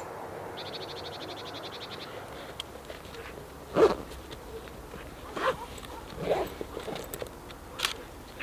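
Outdoor ambience: a short, rapid, high trill about half a second in, then four sharp knocks or rustles spread over the next few seconds, the first the loudest.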